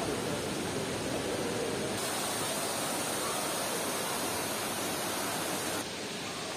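Steady rushing background noise with no distinct events, its tone shifting abruptly about two seconds in and again near the end.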